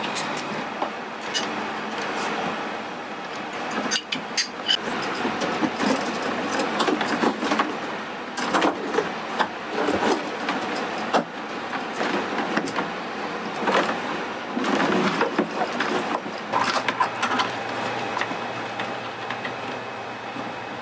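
Handling noise from fitting a watermaker control panel: irregular clicks, knocks and rustles as plastic tubing and the plastic panel are worked into place by hand, over a steady background hum.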